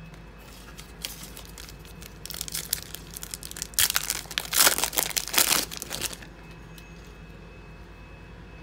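Foil wrapper of a 2016 Donruss football card pack being torn open and crinkled: irregular crackling that starts about two seconds in, gets loudest in the middle, and stops about six seconds in.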